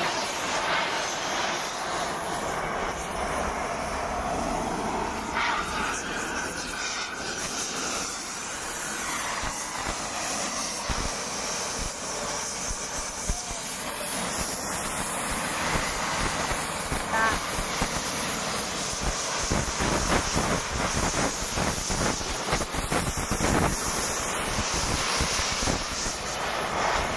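Oxy-fuel cutting torch flame hissing steadily as it is held against steel plate.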